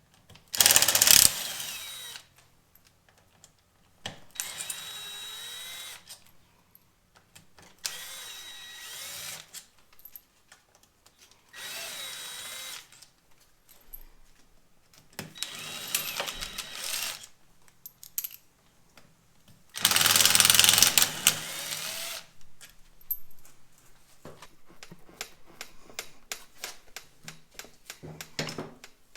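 Electric power drill running in six short bursts of one to two seconds each, its motor pitch wavering within each burst. A run of small clicks and clatter follows near the end.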